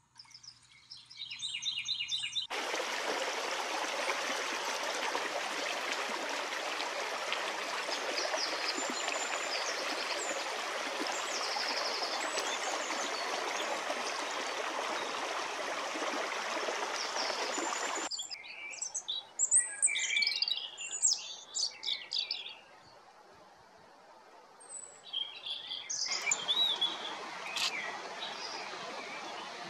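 Steady running water from a small stream, with small songbirds chirping over it. The water cuts off suddenly, leaving close birdsong and chirps that come in short bursts, and a softer water sound with more bird calls returns near the end.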